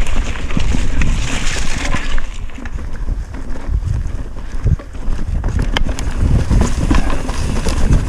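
Wind buffeting the camera microphone over the low rumble of a mountain bike rolling fast down a rocky dirt trail, with a few sharp knocks and rattles from the bike.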